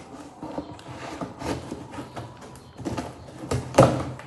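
Scissors cutting through the packing tape and cardboard of a shipping box: a run of irregular scraping and crunching strokes, the loudest one near the end.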